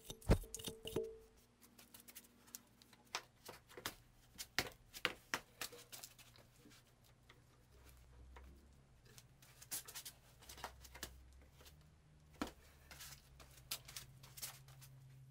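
Scattered light clicks and taps of metal chips and steel parts being handled on a drill press table, starting with a hand brushing chips off a steel plate. A faint low hum comes in about halfway through.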